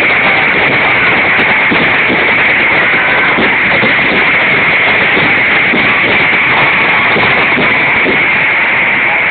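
Fireworks display: a loud, steady din of many shells bursting and crackling together, with no break.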